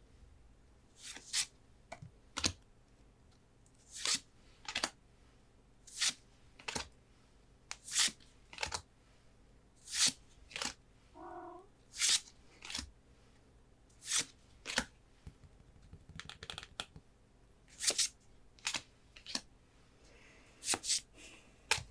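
Pokémon trading cards being handled one at a time: short crisp swishes of card sliding over card, often in pairs, coming every second or two.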